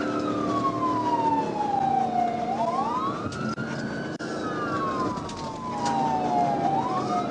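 Police car siren on wail, each cycle rising quickly and then sliding slowly down, about every four seconds, with a second wail slightly out of step alongside it. Engine and road noise run underneath.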